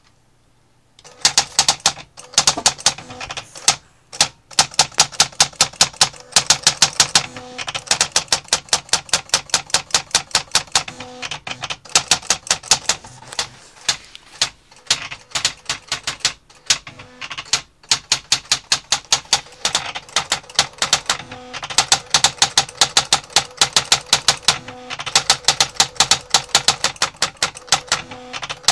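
Sharp PA-3000 electronic typewriter printing automatically under microcontroller control: a fast, even run of sharp type strikes, several a second, starting about a second in and broken by a few short pauses.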